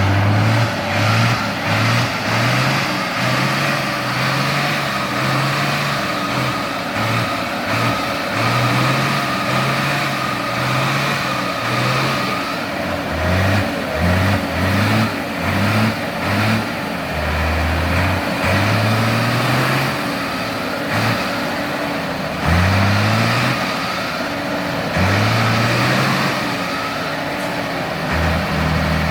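Off-road 4x4's engine revving in repeated short throttle bursts, its pitch jumping up and dropping back about once a second, with a few longer revs in the second half, as the vehicle works through a rough section.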